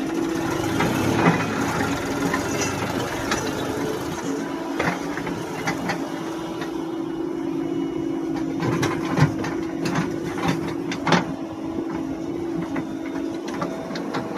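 JCB 3DX Plus backhoe loader's diesel engine running steadily under work, with scattered sharp clanks and knocks from the machine's working parts.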